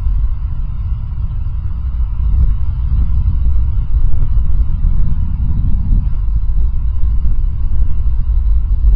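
Wind rushing over a helmet camera's microphone during a hang glider flight: a steady low rumble that grows a little louder a few seconds in.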